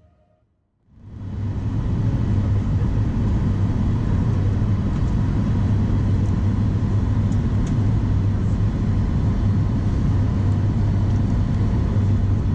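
Steady cabin noise inside a Boeing 737 MAX 8 airliner: the roar of its CFM LEAP-1B engines and airflow, with a deep hum under a wide hiss. It fades in about a second in and then holds steady.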